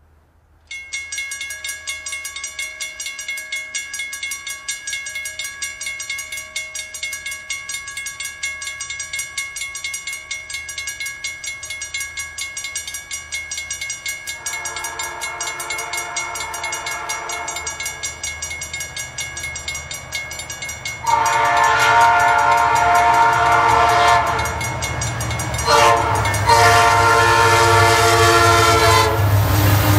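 Railroad crossing bells start about a second in and ring rapidly and steadily. From the middle on, the approaching freight train's lead diesel locomotive sounds its air horn in the grade-crossing pattern: long blasts, then a short one and a final long one. The locomotive's low engine rumble grows as it reaches the crossing.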